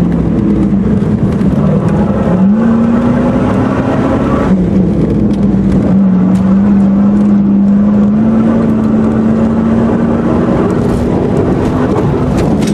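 Off-road vehicle's engine working hard while driving in loose dune sand, heard from inside the cab: a loud steady drone whose pitch dips and climbs back several times, over a rough rushing noise.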